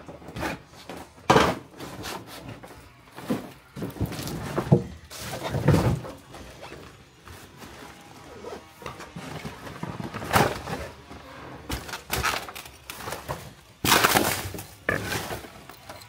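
Irregular knocks, thuds and crunching scrapes of hard debris, a dozen or so sharp hits, loudest about a second in, around five to six seconds in and near the end.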